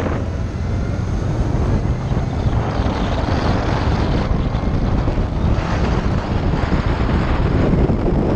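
Wind rushing over the microphone of a rider on a moving Harley-Davidson LiveWire electric motorcycle, with low road rumble. It is a steady, noisy rush with no engine note.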